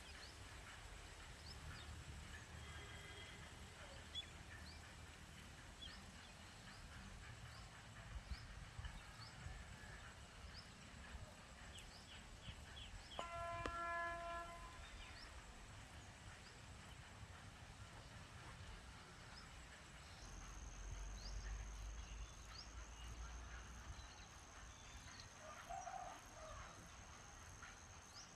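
Faint outdoor ambience with scattered short, high bird chirps. About halfway through, a single pitched horn-like tone sounds for a second or two. From about two-thirds of the way in, a steady high whine holds on.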